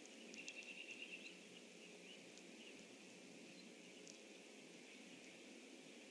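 Faint outdoor pond ambience with a steady low hiss, and near the start a distant bird's short rapid trill of about ten quick notes lasting about a second.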